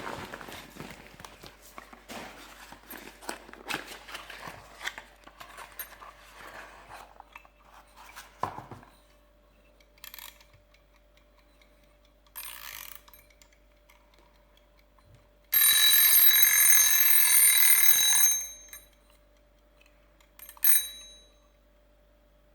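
Packaging and handling rustle, then a small mechanical bell rings steadily for about two and a half seconds, with one short ring a couple of seconds later.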